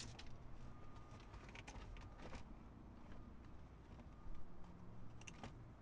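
Faint scattered clicks and rustles of hands handling plastic car interior trim while the centre console is being freed, with a slightly louder knock about four seconds in, over a low steady hum.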